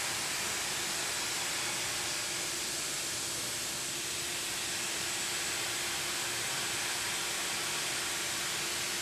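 A steady, even hiss with a faint low hum under it, unchanging in level.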